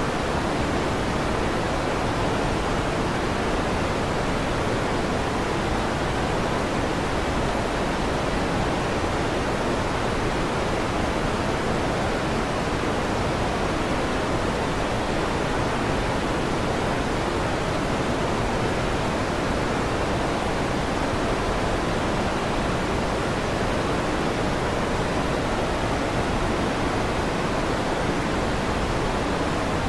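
Steady electric fan noise: an even, unbroken rushing hiss, strongest in the low and middle range.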